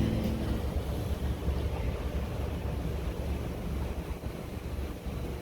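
Steady wind noise buffeting the microphone, with a low rumble underneath; a music track fades out at the very start.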